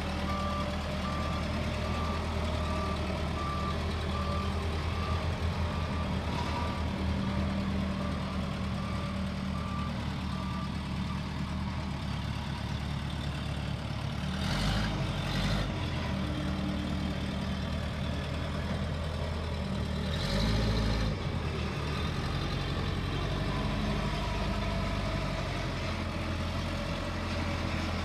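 Case 580L backhoe's diesel engine running steadily, with its reverse alarm beeping about once a second for the first third, then stopping. Two brief louder surges break the steady running about halfway and two-thirds of the way through.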